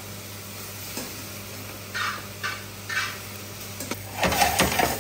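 Meat ragù sizzling in an aluminium frying pan over a gas flame, with three short scraping strokes about two seconds in. Near the end boiled gnocchi are tipped in from a perforated skimmer, giving a louder burst of sizzling and clatter.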